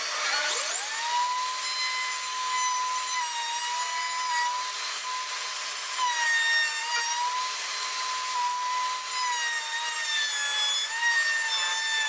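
Router motor in a homemade router table switching on and spinning up with a rising whine, then running steadily at a high pitch while a square wooden strip is fed past a round-over bit. The pitch dips slightly a few times as the bit cuts. A steady hiss of the dust vacuum runs underneath.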